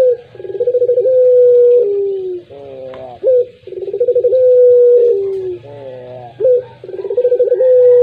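Puter pelung (domestic Barbary dove) cooing in repeated phrases about every three seconds. Each phrase is a quick stuttering roll that leads into a long held note, which drops in pitch at the end.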